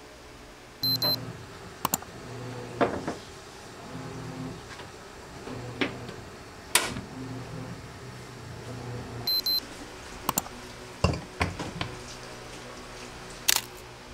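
An electronic appliance gives a short double beep about a second in and again about nine seconds in, amid sharp clicks and knocks of things being handled, the loudest about seven seconds in; a low hum comes and goes.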